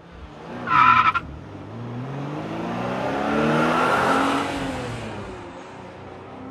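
Hot rod's engine running alongside at highway speed, its pitch gliding up and then back down and loudest about four seconds in, over road and wind noise. A short, loud high-pitched blast like a horn sounds about a second in.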